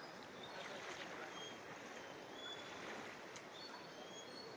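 Steady rushing of a flooded river's fast-flowing water, with a few faint short high chirps now and then.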